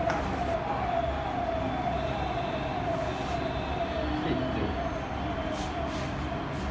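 An emergency vehicle siren sounding a repeating falling tone, a little faster than one sweep a second.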